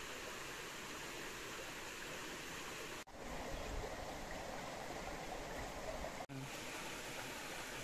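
Forest stream and small waterfall rushing steadily over rocks. The sound drops out for an instant twice, about three and six seconds in.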